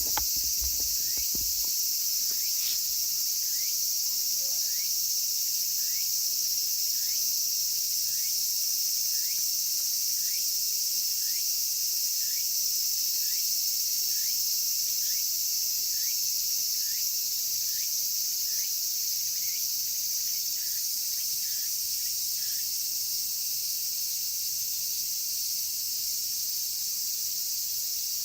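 Cicadas droning loudly in a steady high sizzling hiss, with a short falling chirp repeating about every three-quarters of a second that stops a few seconds before the end. A few soft low knocks in the first second or two.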